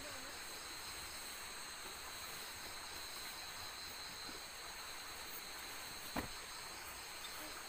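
Night insects chirping steadily in high, even tones over a faint hiss, with a single sharp knock about six seconds in.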